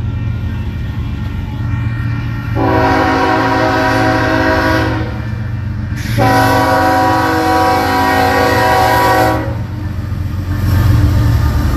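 Union Pacific freight locomotive's air horn sounding two long blasts for a grade crossing, the second a little longer, over the steady low rumble of the approaching diesel locomotives, which grows louder near the end as the engines come alongside.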